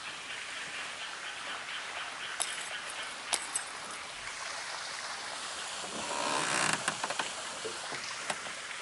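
Quiet ambience on the water from a small fishing boat: a steady hiss with a few sharp clicks. About six seconds in comes a louder, rougher rush of noise lasting about a second, likely the boat or gear moving as the boat turns.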